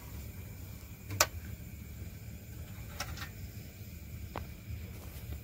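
A few short sharp clicks and taps from handling a clutch cable among engine parts, the loudest about a second in, over a low steady rumble.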